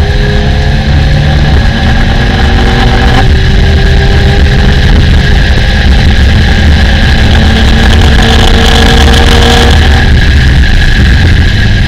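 Car engine accelerating hard on a race track. Its pitch climbs, drops suddenly at an upshift about three seconds in, then climbs again until the throttle is lifted near the end.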